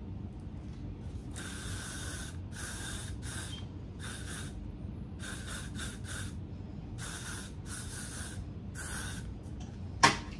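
Aerosol hairspray can sprayed in about ten short bursts of hiss, some in quick pairs, with a sharp click near the end.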